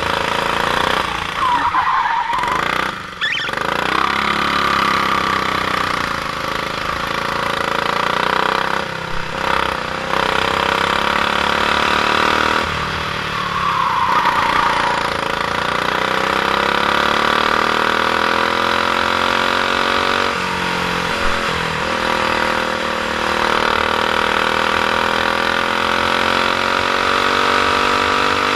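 Stock Honda GX390 single-cylinder four-stroke kart engine running hard at racing speed. Its pitch dips several times and climbs again as the throttle is eased and reopened.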